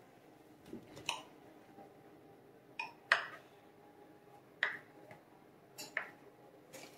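Kitchen knife cutting through a sheet of thawed puff pastry, its blade knocking down onto the granite countertop in a series of short, sharp clicks, about seven, spaced irregularly.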